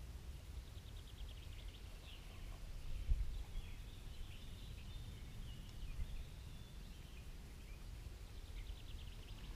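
Quiet forest ambience: faint, distant birdsong over a low rumble.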